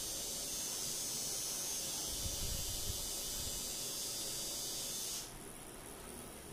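A steady high hiss, with a few low thumps a little past two seconds in, that cuts off suddenly about five seconds in, leaving a quieter background.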